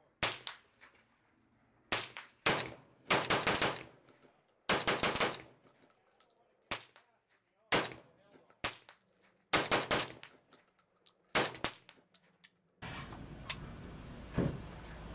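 Saiga 12 semi-automatic 12-gauge shotgun firing a string of about a dozen shots at an uneven pace, some in quick pairs, with spent shells ejecting. The shooting stops near the end, leaving a steady background hiss and a single knock.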